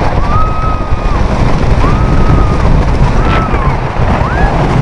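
Riding a wooden roller coaster: wind rushing over the microphone with the train's low rumble, while riders let out about four long, high screams in a row.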